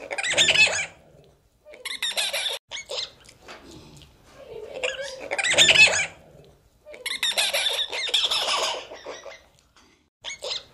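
Monkeys calling with high, squealing cries in repeated bursts of a second or two, about four times, with short pauses between.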